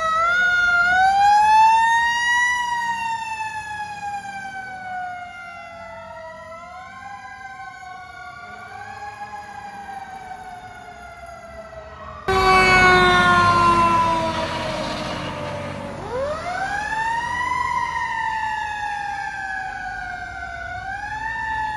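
Fire engine sirens wailing in slow rising and falling sweeps. About twelve seconds in the sound switches abruptly to a louder, rougher siren tone falling in pitch over a rushing noise, then the wail starts up again.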